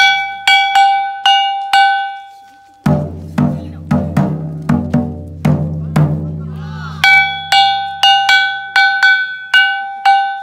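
A kane, a small hand-held bronze gong, struck in a quick steady rhythm of about two or three ringing strikes a second. About three seconds in it gives way to a taiko drum beaten at the same pace, and the gong takes over again about seven seconds in. These are the drum and gong of a Mushi-okuri insect-sending procession.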